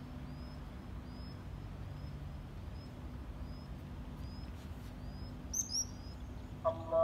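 Small birds chirping at dusk: a steady series of short, high, rising chirps about two a second, with a brief louder flurry of higher calls about five and a half seconds in. A low steady hum runs underneath.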